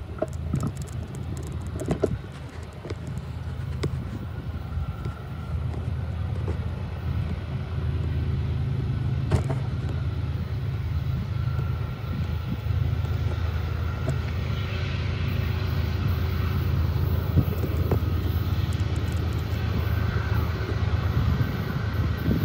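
Diesel freight locomotives approaching from a distance: a steady low engine rumble that grows gradually louder.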